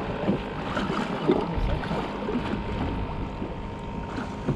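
Steady noise of water around a small boat, with wind on the microphone and faint, indistinct voices in the first second or so.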